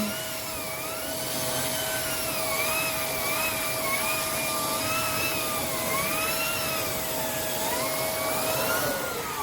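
Shark NV501 upright vacuum running steadily during pre-vacuuming, its whine wavering up and down in pitch as the nozzle works the surface. Near the end the pitch falls away as the motor winds down after being switched off.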